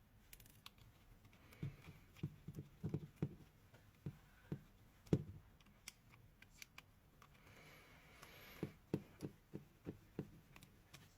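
Plastic electric shaver housing being handled and screwed back together: a run of small, irregular clicks and knocks, with a short scraping rasp a little after the middle.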